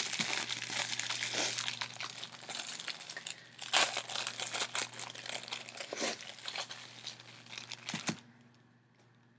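Plastic snack-cake wrapper being torn open and crinkled in the hands, with a sharper, louder rip about four seconds in; the crinkling stops near the end.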